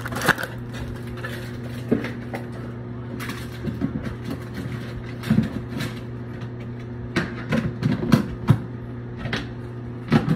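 Kitchen handling noises: scattered light knocks and clicks, some in quick clusters, over a steady low hum.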